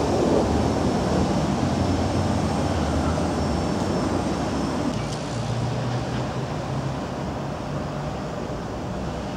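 Low-floor electric tram rolling slowly around a tight turning loop: a steady low running hum and wheel-on-rail rumble, with a faint high whine in the first half, easing slightly as it moves on.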